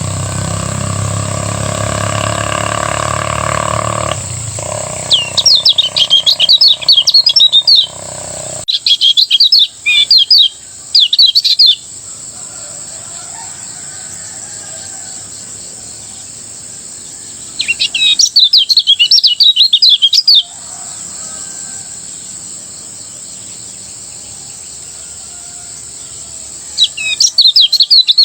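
Kecial kuning (white-eye) singing in loud bursts of fast, chattering high trills, each a few seconds long with pauses between. A steady high whine runs underneath, and a low hum fills the first few seconds.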